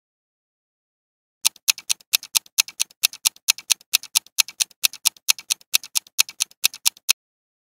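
Countdown timer sound effect: fast, even clock-style ticking, about five ticks a second. It starts about a second and a half in and stops shortly before the end.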